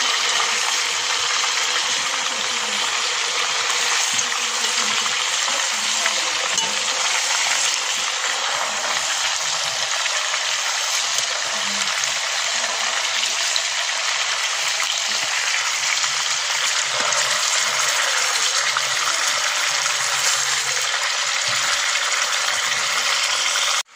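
A whole spice-marinated chicken sizzling steadily in hot oil in a karai, with occasional clinks of a metal spatula against the pan as the chicken is turned.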